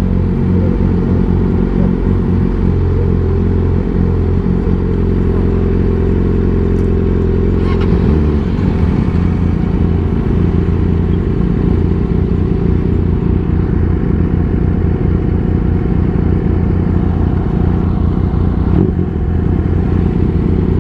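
Motorcycle engine running under way at a steady pitch. About eight seconds in the note shifts and the sound turns rougher and more uneven.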